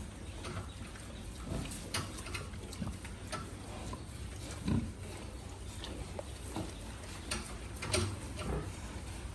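Pigs grunting now and then, short low grunts among scattered clicks and knocks, over a steady low rumble.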